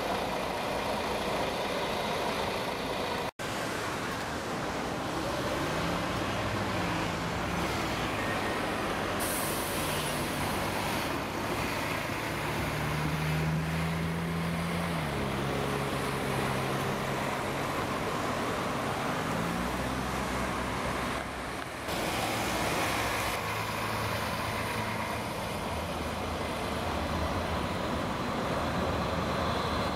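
Mercedes-Benz Citaro city buses driving past in street traffic, their engines rising and falling in pitch as they pull away and slow. A short sharp air hiss comes about nine seconds in.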